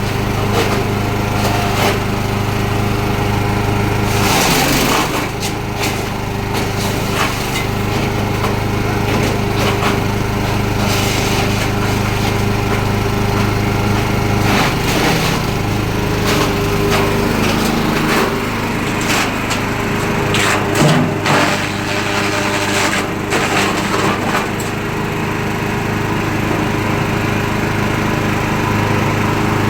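Small engine-driven wood chipper running steadily, with bursts of cracking and crunching several times as wood is fed through and chipped.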